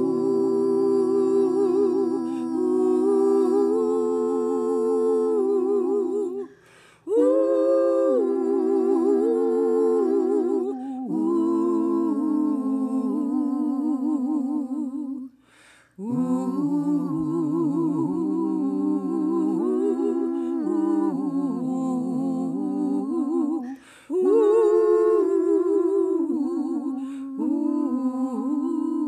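Several voices humming a slow melody together in harmony, unaccompanied and with vibrato, in long phrases broken by three short pauses for breath.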